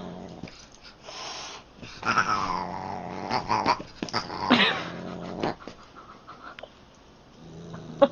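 A Siamese cat and a dog play-fighting: low growling near the start and again near the end, with two cries that fall steeply in pitch about two and four and a half seconds in, and some short scuffling knocks in between.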